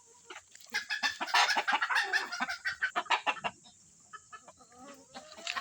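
Chickens clucking in a quick, loud run of short calls from about a second in, then quieter, with a few softer calls near the end.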